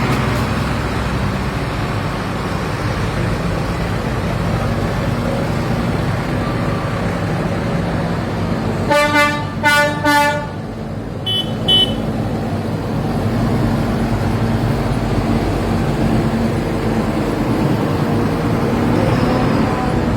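Tractor engines running steadily. About nine seconds in, two loud horn blasts sound, followed by two short, higher-pitched toots.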